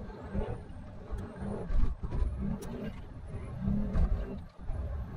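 A truck running: an uneven low rumble with a few irregular thumps and clicks, loudest about two seconds and four seconds in.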